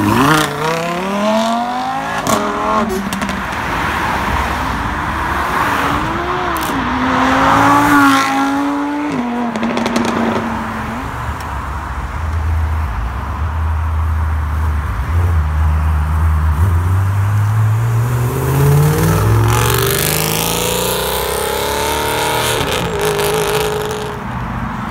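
Supercar engines accelerating away one after another. A Lamborghini Huracán's V10 revs hard as it pulls off at the start, its pitch climbing and breaking at gear changes. Further cars follow with engine notes that drone low and then rise as they accelerate.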